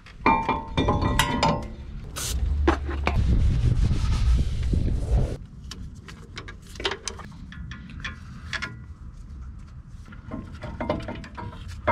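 Metal clinks with a brief ring, then a rag rubbing over a brake rotor for about three seconds, followed by scattered light clinks of parts being handled.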